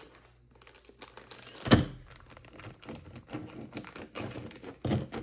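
Scissors cutting into a mystery pack's packaging, struggling to get through it. A sharp knock about two seconds in, then a run of small irregular clicks and snips, with another knock near the end.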